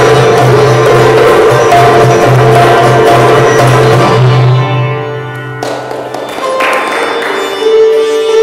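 Live sitar, koto and hand-drum trio playing fast and loud over a steady low drone. About four and a half seconds in the ensemble thins out and the drone stops, two sharp drum strikes ring out, and sustained plucked-string notes carry on.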